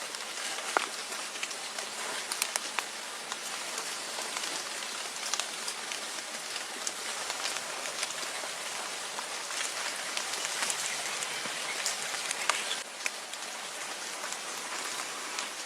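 Falling water pattering: a steady rain-like hiss with scattered small crackles and drips.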